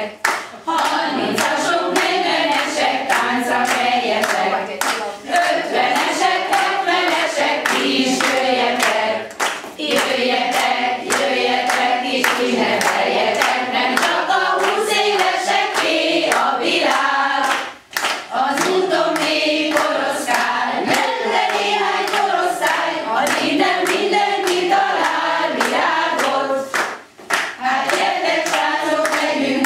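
A group of women singing a song together, with steady hand clapping keeping the beat. The singing pauses briefly twice, once a little past the middle and once near the end.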